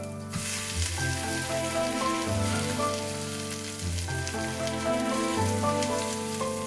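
Squid and minari pancake frying in oil in a pan, a steady sizzle that swells up about a third of a second in, under background music.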